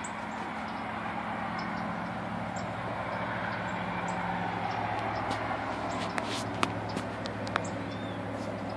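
Steady low mechanical hum under a rushing noise that swells through the middle and eases off, like passing traffic, with a few light clicks near the end.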